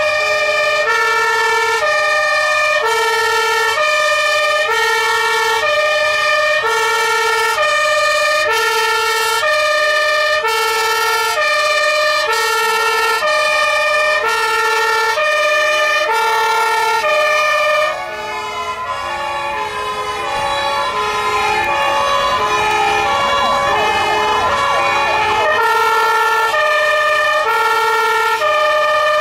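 Several fire engine sirens sounding at once: a two-tone hi-lo siren switching pitch about every half second, overlaid with rising and falling wailing sirens from other trucks. The wails grow more prominent after a short dip about 18 seconds in.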